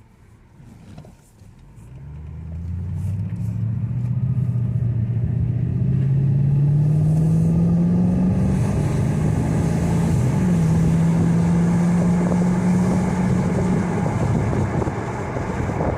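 2002 Mercedes CL500's V8, freshly fitted with new spark plugs, coil packs and wires, pulling the car away under acceleration. Its pitch climbs steadily for several seconds, dips briefly about ten seconds in as the gearbox shifts up, then holds steady. Wind noise comes through the open windows.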